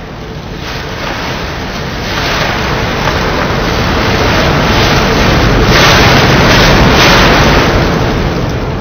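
A loud rushing noise like surf or wind that swells slowly to a peak about six or seven seconds in, then begins to ease off.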